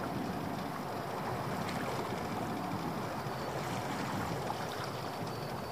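Water washing and lapping against the hull of a small open boat drifting on a choppy sea, a steady, even wash.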